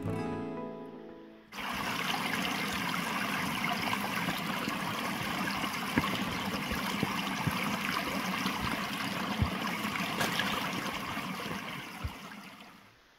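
Small woodland stream tumbling over mossy boulders in little cascades: a steady rush of water that comes in suddenly about a second and a half in and fades away near the end.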